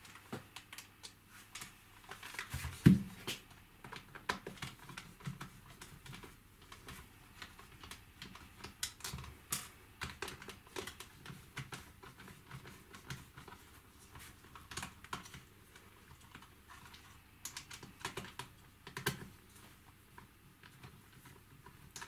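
A hand screwdriver undoing the screws that hold the battery pack on a Dyson V7 cordless vacuum: irregular light clicks and taps of the driver and the plastic casing, with one louder knock about three seconds in.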